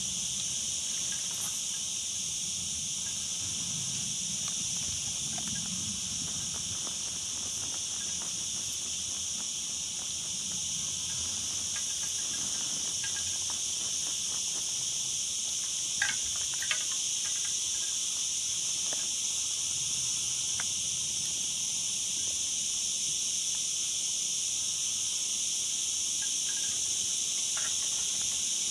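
A steady, high-pitched chorus of insects chirring without a break, with two sharp clicks about sixteen seconds in.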